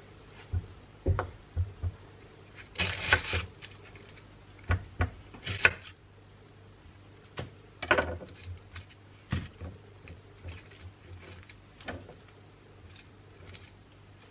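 Kitchen handling sounds: scattered light knocks and clicks with a few brief rustles, over a faint steady low hum.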